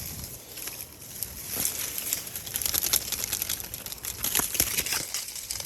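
Tree branches being shaken by hand: a dense rustling and crackling of leaves and twigs. It builds about a second and a half in and thins out near the end.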